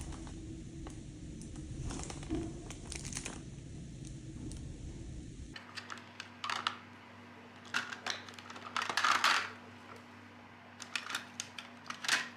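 Small objects being handled on a table: scattered light clicks and taps with short bursts of rustling and crinkling. A low rumbling hum runs through the first half and cuts off abruptly about halfway.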